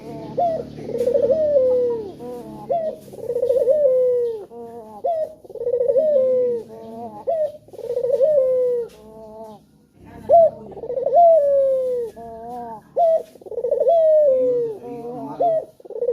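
Male puter (ringneck dove) cooing over and over, about one call every two seconds. Each coo starts with a quick rolling rise and then slides down in a long falling note.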